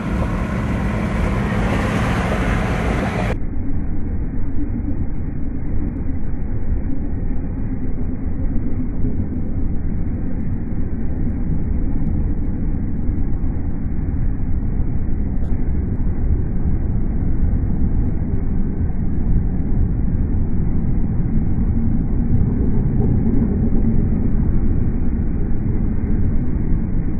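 Steady road rumble and wind noise heard from inside a moving vehicle at highway speed, turning duller about three seconds in.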